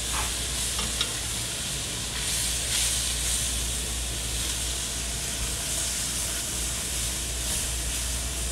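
Diced bell peppers and onions sizzling as they sauté in an enameled pot while being stirred, with one sharp click about a second in.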